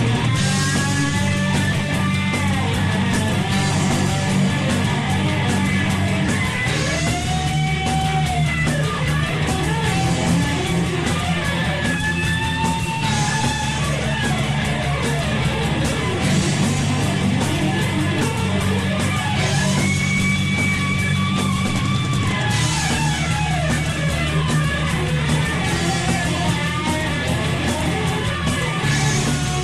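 Power metal song: distorted electric guitars with a melodic lead line bending in pitch over a steady, full band backing.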